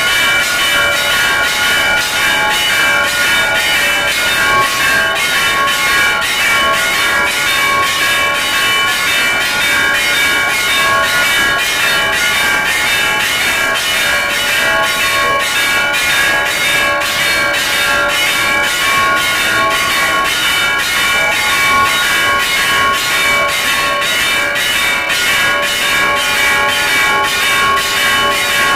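Church bells rung by hand from the tower, their clappers pulled by ropes in a fast, steady run of strikes. Several bells of different pitches sound together and keep ringing between the strokes.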